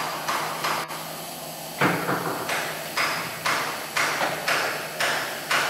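Regular hammer blows, about two a second, beginning about two seconds in after a few lighter knocks, over a low steady hum.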